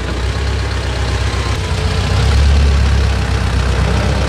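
Diesel engine of a T-40AM tractor running steadily, growing a little louder about halfway through.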